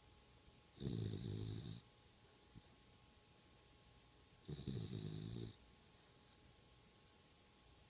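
Snoring: two long, rasping snores of about a second each, roughly four seconds apart, over a faint steady hum.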